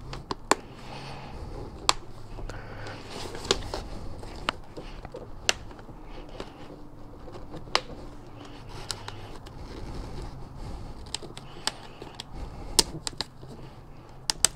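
Padded fabric liner being pressed back into a Shoei RF-1200 full-face helmet by hand: soft rustling of fabric and foam, broken by scattered sharp plastic clicks as the liner's tabs and snaps seat in the shell.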